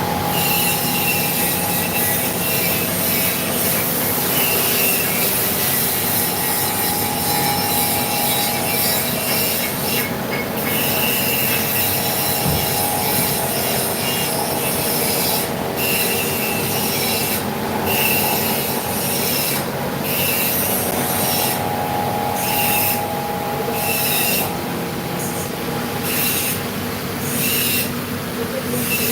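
CNC vertical machining centre milling: the spindle and cutting make a steady set of tones under a high hiss, and the hiss drops out briefly again and again in the second half.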